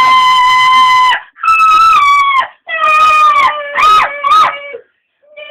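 A high-pitched voice wailing in long, howl-like notes: one held note, then several shorter ones that bend and slide downward, stopping about five seconds in.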